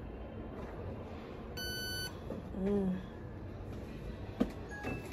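Card payment terminal giving one steady electronic beep, about half a second long, a little over a second and a half in. A brief hum of a voice follows just after.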